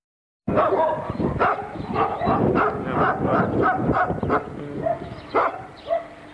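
Central Asian Shepherd Dog (Alabai) barking in a rapid run, about four barks a second, thinning out to a few single barks near the end. It starts after half a second of silence.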